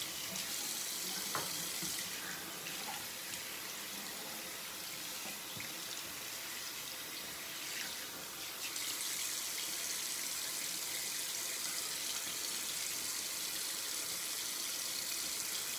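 Bathroom sink tap running steadily, water splashing into the basin. The flow gets slightly louder about nine seconds in.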